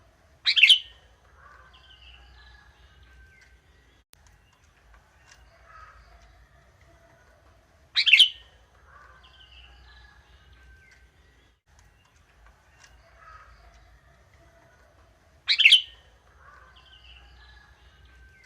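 Sooty-headed bulbul (kutilang) calling: three short, loud, sharp calls about seven and a half seconds apart, with fainter twittering between them.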